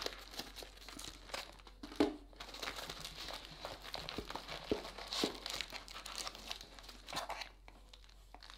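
Hands rummaging through foam packing peanuts in a small cardboard box and handling foil-wrapped trading-card packs: a steady run of crinkling and rustling, with one sharp knock about two seconds in.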